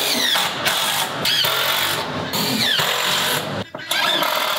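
Cordless drill driving long roofing screws through corrugated tin roofing into the wooden rafters, in several runs with short breaks, with a whine that rises and falls.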